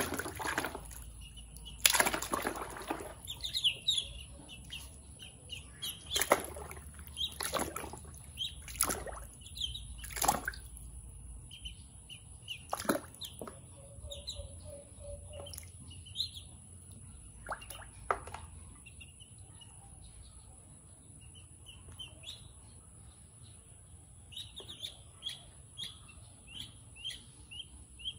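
Ducklings splashing and paddling in a plastic basin of water, with sharp splashes scattered through the first half and their high, short peeps, which come thick and fast near the end.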